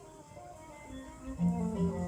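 Music with a melody on a plucked string instrument; deeper notes come in at about three quarters of the way through.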